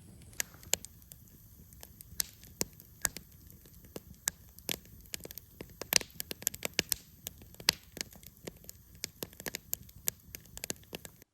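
Campfire crackling, with irregular sharp pops and snaps, several a second, over a steady low background noise.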